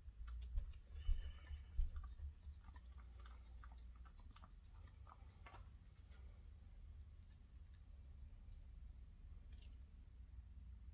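Faint scattered clicks and light taps of small screws and plastic desk-fan parts being handled during assembly, with a few low thumps in the first two seconds.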